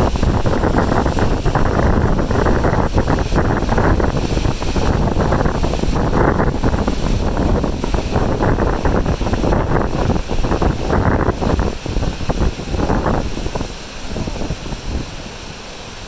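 Strong gusty wind buffeting the microphone, over the steady wash of ocean surf breaking far below. The gusts ease about two seconds before the end.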